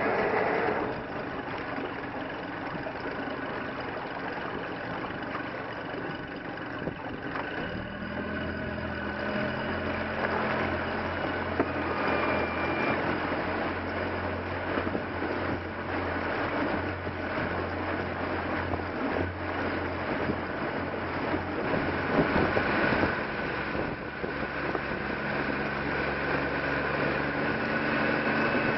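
Glasspar Avalon runabout's engine running while the boat is under way, with water and wind noise over the hull; a steady low engine hum becomes clear about eight seconds in.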